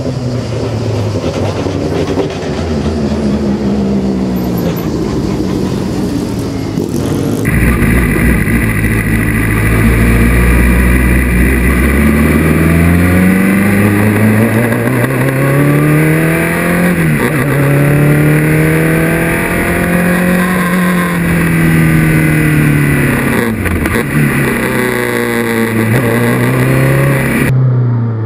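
A Formula 2 single-seater's 250 hp Renault engine at high revs, first heard from trackside, then on board. It accelerates with its pitch climbing and dropping at a gear change, holds steady, then falls in steps through downshifts with short blips of revs near the end.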